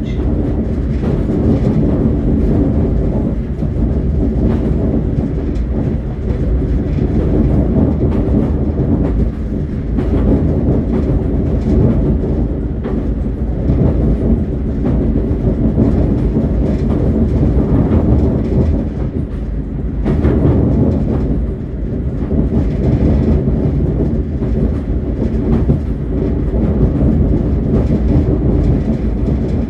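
Passenger train running along the line, heard from inside the carriage: a steady low rumble of wheels on the rails, with some clatter over the track.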